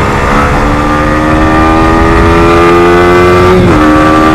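Yamaha R15 V4's 155 cc single-cylinder engine accelerating hard, its pitch climbing steadily with speed. About three and a half seconds in the pitch drops sharply as the rider shifts up a gear, then starts climbing again.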